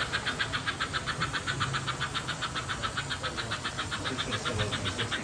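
Toy electric trains running on their track: a fast, even ticking of about eight clicks a second over a low motor rumble.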